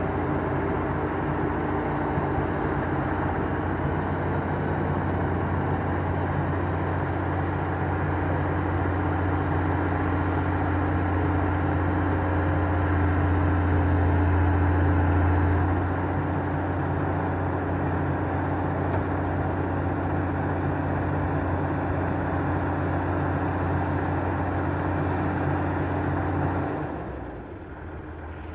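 Kato HD700VII hydraulic excavator's diesel engine running steadily under load as it digs and loads soil, with a low drone that swells louder about halfway through. Near the end the sound drops abruptly to a quieter engine drone.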